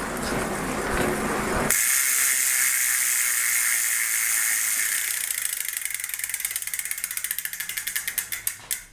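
Rear freehub of a belt-drive mountain bike clicking rapidly as the wheel freewheels, after a short whir of the drive being turned. The clicks slow steadily as the wheel spins down and stop near the end.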